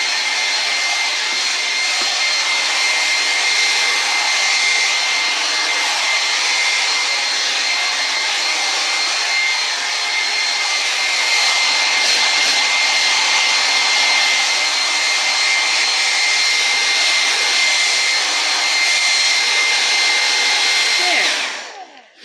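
Handheld hair dryer blowing steadily, a rush of air with a thin steady high whine, then switched off near the end as the hair is dried.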